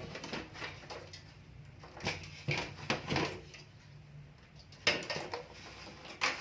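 Metal clanks, knocks and rattles from a desktop PC case being opened by hand, a few short irregular knocks over a faint low hum.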